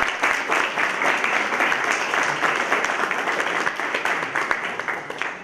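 Audience applauding: many hands clapping together, steady, then dying away near the end.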